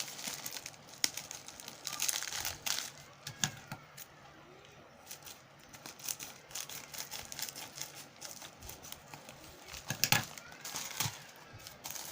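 Plastic packaging crinkling and rustling as it is handled, with irregular clicks and crackles, loudest about ten seconds in.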